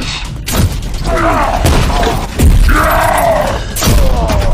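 Fight sound effects: several heavy metallic crashes and thuds as a robot is smashed to the ground, with growling creature vocalizations between the hits, over background music.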